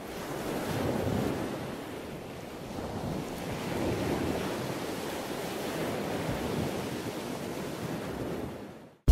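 Football stadium crowd noise from the match broadcast: a steady, even murmur with no distinct voices, swelling about a second in and again around four seconds, then dropping away at the very end.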